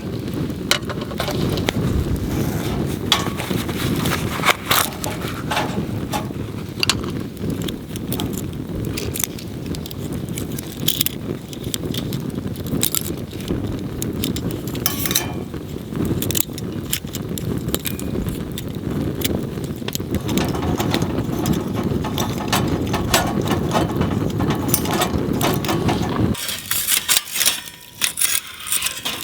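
Small wood fire burning in a compact wood stove: irregular sharp crackles and pops over a steady low rumble. The rumble cuts off abruptly near the end.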